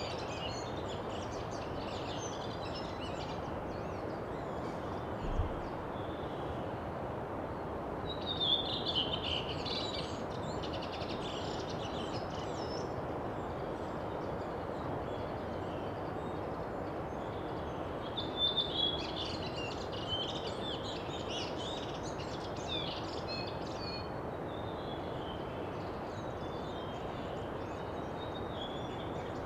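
Steady outdoor background hiss with birds chirping in scattered bursts, busiest about eight seconds in and again just before the twenty-second mark. A brief low thump about five seconds in.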